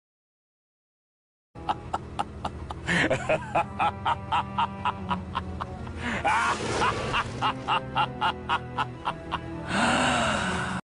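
Evil-laugh sound effect: a long, drawn-out villain's laugh of even 'ha' pulses, about three a second, over a steady music bed. It starts about a second and a half in and cuts off abruptly near the end.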